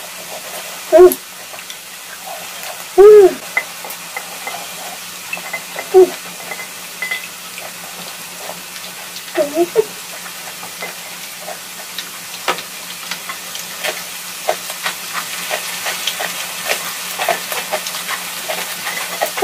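Pork neck, mushrooms and vegetables sizzling steadily on a round tabletop grill pan. A few short vocal sounds break in at about 1, 3, 6 and 10 seconds, and light clicking and tapping fills the second half.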